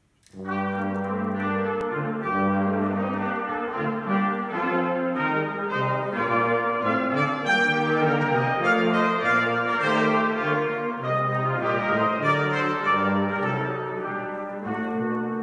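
A brass quartet starts playing about half a second in: several brass instruments sound sustained chords together over a moving low bass line.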